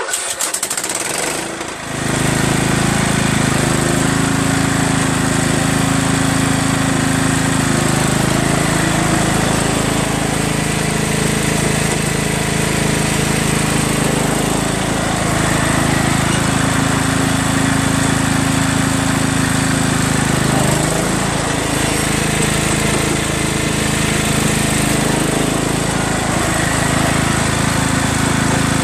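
John Deere LA105 riding lawn tractor's engine starting up and settling into a steady run after about two seconds, its note shifting a few times.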